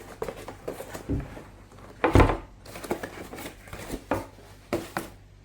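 Packaging and a caulking gun being handled during unboxing: irregular rustles, scrapes and light knocks, the loudest about two seconds in.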